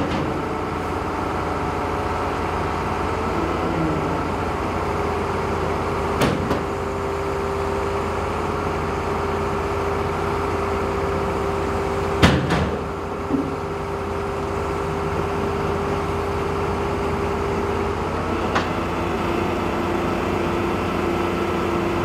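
Heavy diesel engine of a mobile crane running steadily, with a held whine over it, as during a lift. Three sharp knocks come about six seconds apart.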